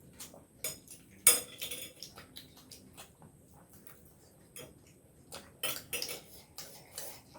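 Scattered clinks and taps of plates and utensils while eating momos, with one sharp clink about a second in.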